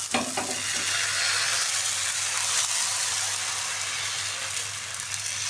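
Thin crepe batter sizzling steadily in a hot oiled nonstick frying pan, with a couple of light knocks right at the start.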